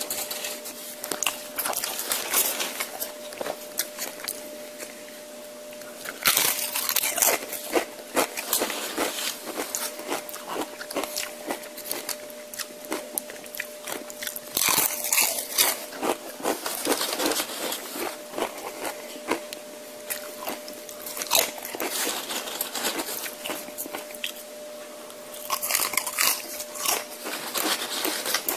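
Close-miked mouth sounds of tortilla chips being bitten and chewed: three loud bouts of crisp crunching spread through, with quieter wet chewing clicks between them. A faint steady hum runs underneath.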